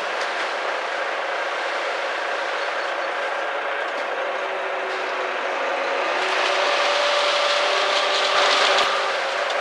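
Concrete mixer truck running: a steady mechanical noise that grows louder about six seconds in and drops back near the end.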